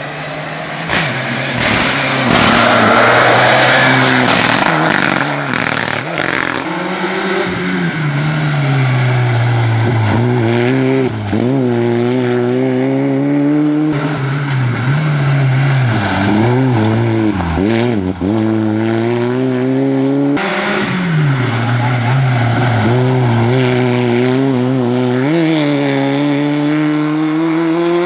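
Rally car engines at full stage pace over several short roadside clips, the note climbing under acceleration and dropping at each gear change or lift. A few seconds in, a loud, noisy close pass.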